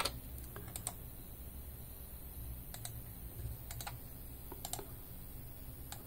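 Computer mouse clicking, a few quick pairs of clicks spaced a second or so apart, over a faint low hum.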